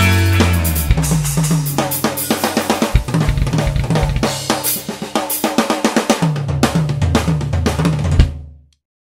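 Band music led by a full drum kit playing a busy beat, with kick, snare, hi-hat and cymbal, over a low sustained bass line. It stops suddenly near the end.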